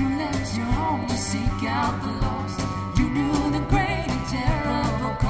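Live worship band playing with a steady beat, electric guitar among the instruments, while two women sing the verse of a hymn-like song together into microphones.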